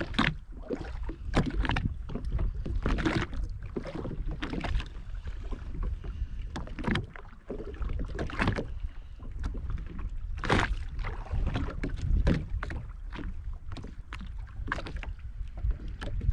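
Water slapping irregularly against a jet ski's hull, with wind rumbling on the microphone.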